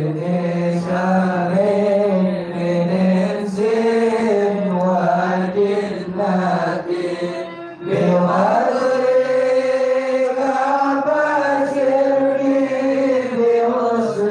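A man's solo voice chanting a slow, melodic devotional recitation, holding long notes that glide up and down, with a short pause for breath about eight seconds in.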